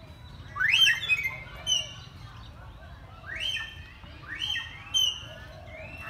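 Common hill myna giving loud, sharply rising whistles: a quick cluster about a second in, then single ones spaced a second or so apart.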